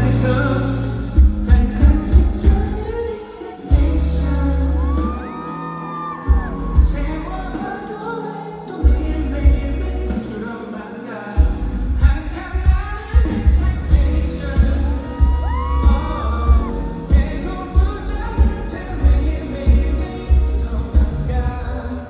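Pop song played loud through a concert sound system, with a heavy bass line and frequent drum hits. Gliding high tones come about 5 seconds in and again about 15 seconds in.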